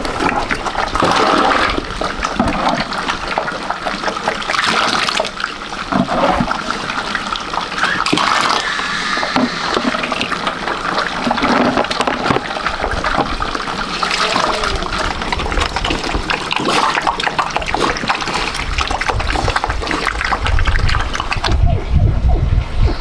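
Water running and splashing. About a second and a half before the end it gives way to a low rumble.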